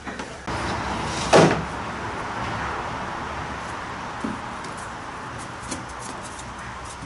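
Thin scrap plywood pieces and clamps knocking against the boat's wooden framing as they are fitted, with the loudest knock about a second and a half in. Under the knocks is a steady rushing noise that starts about half a second in and slowly fades.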